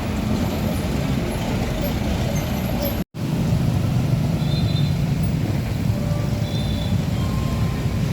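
Heavy truck traffic passing on a road: steady low engine and road rumble, broken by a brief dropout to silence about three seconds in.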